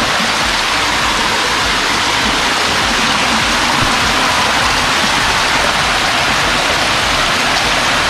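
Water of a rocky mountain stream running steadily over boulders, an unbroken rushing hiss.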